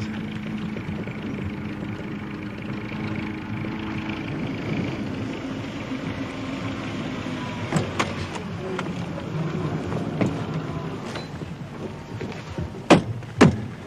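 A motor vehicle's engine running steadily, its pitch shifting partway through, with a few sharp knocks, the loudest two close together near the end.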